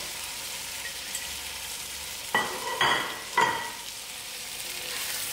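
Chicken feet, masala and tomatoes sizzling steadily in hot oil in a pot. Three short, ringing clanks of a spoon knocking against the pot come about two and a half to three and a half seconds in.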